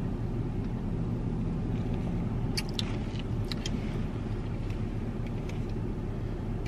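Steady low hum of an idling car heard inside the cabin, with a few faint clicks about two and a half to three and a half seconds in.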